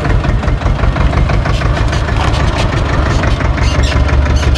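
SAME tractor's diesel engine running steadily as the tractor drives across rough grass: a loud, even low drone with a busy mechanical clatter over it.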